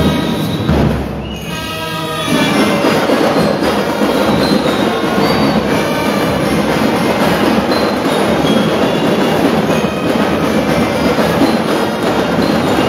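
A school marching band playing live: drums keep a dense beat under a bright glockenspiel-type lyre melody. There is a short lull about a second in, then the full band comes back in just after two seconds.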